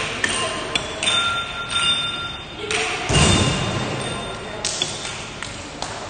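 Air hockey puck and plastic mallets knocking against the table in a run of sharp clacks, among electronic beeps and chimes from arcade machines. A louder, heavier thud comes about three seconds in.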